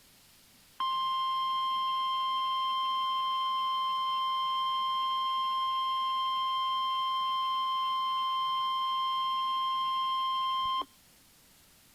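NOAA Weather Radio warning alarm tone: one steady tone starting about a second in, held for about ten seconds, then cutting off sharply. It is the alert signal that a warning message is about to be broadcast.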